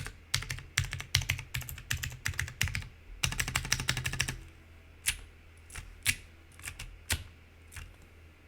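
Typing on an NRD Kaze mechanical keyboard with clicky Razer Green switches, GMK keycaps and a polycarbonate plate: a fast, steady run of keystrokes for about four seconds, then a handful of scattered single keypresses.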